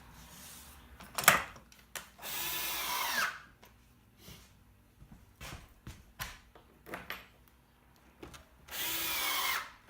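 Power drill run in two short bursts of about a second each, the motor whining down at the end of each burst. A single sharp knock about a second in is the loudest sound, with small clicks of handling between the bursts.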